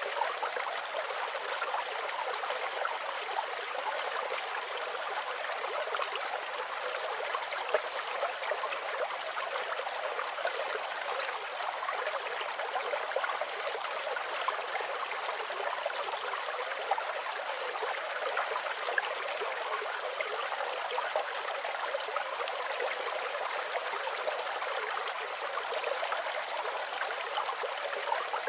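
Steady sound of running water from a stream, an even rushing and trickling that does not change.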